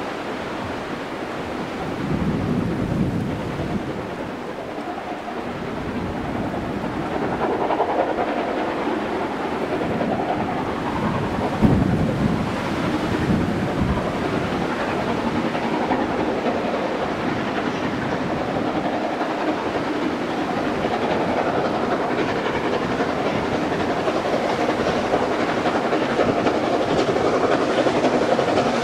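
SR Schools class three-cylinder 4-4-0 No. 925 'Cheltenham' steam locomotive working a train of coaches, growing steadily louder as it approaches. There is a brief sharp thump about twelve seconds in.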